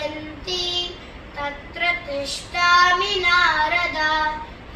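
A boy singing solo and unaccompanied, holding long notes that waver and slide between pitches, with short pauses for breath.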